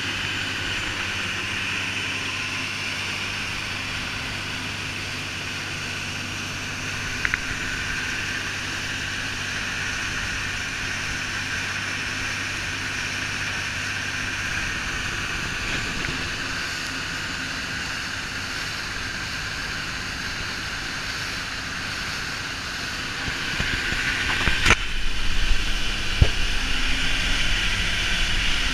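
A boat's engine running steadily at speed, a low hum under the rushing hiss of the wake. Near the end it gets louder and rougher, with a few thumps.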